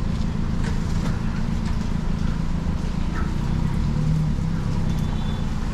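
Steady low outdoor rumble, with faint ticks and knocks now and then.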